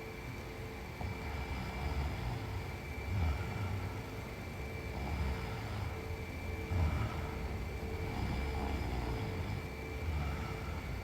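A sleeping woman snoring: low, rough snores recur every few seconds with her breathing.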